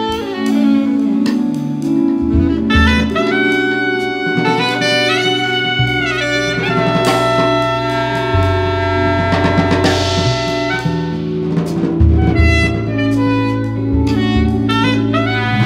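Jazz band playing live: a saxophone plays quick running lines over a drum kit, with low held bass notes that change every few seconds.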